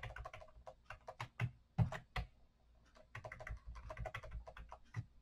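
Typing on a computer keyboard: irregular key clicks, with a short pause about halfway through.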